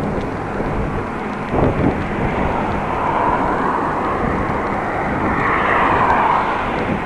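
Steady rushing wind and road noise picked up by an action camera on a moving bicycle. There is a brief thump about a second and a half in, and a louder swell of rushing noise through the middle.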